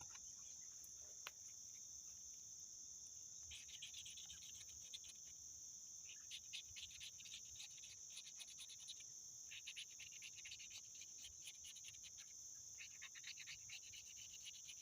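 Rapid scratching of a lottery scratch-off card, coming in four spells of quick strokes with short pauses between them. A steady high insect chorus hums behind it.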